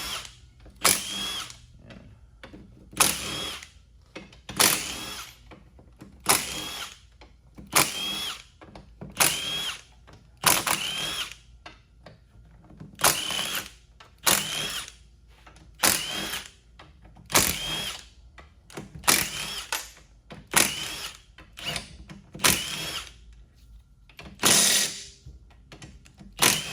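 A handheld power tool runs a few seconds at a time as it spins out the transfer case housing bolts one after another. There are about sixteen short bursts one to two seconds apart, each with a rising whine as the motor spins up.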